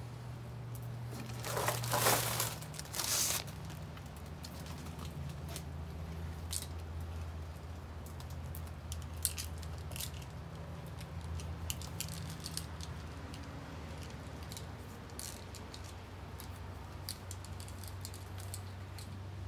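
New chainsaw chain being handled and untangled, its links clinking and rattling in scattered short clicks, with two louder rustling handling noises about two seconds in. A steady low hum runs underneath.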